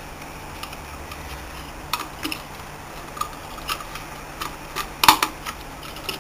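Scattered small clicks and metallic taps from a screwdriver and wire at a screw terminal as a motor lead is fitted and tightened into the torque limiter, the loudest click about five seconds in. A steady low hum runs underneath.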